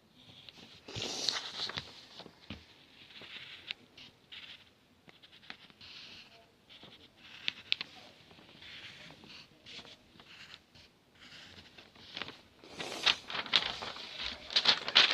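Paper being handled: irregular rustling and scraping with small clicks, busiest about a second in and again near the end.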